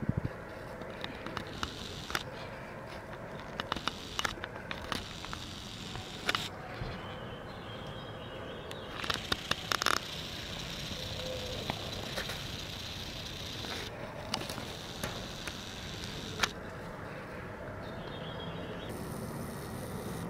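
Steady outdoor background rumble with scattered sharp clicks and crackles, thickest about nine to ten seconds in.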